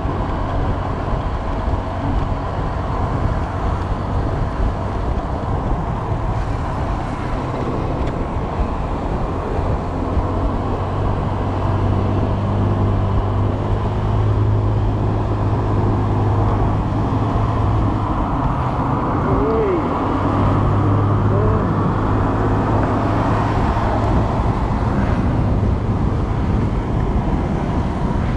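Honda Click 125i scooter engine running steadily at cruising speed, its low hum swelling a little in the middle, under a constant rush of wind and road noise on the camera's microphone.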